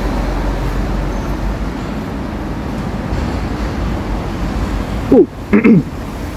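Steady road traffic passing on a street: an even rushing noise. About five seconds in, two short voice sounds, each falling in pitch, are the loudest thing.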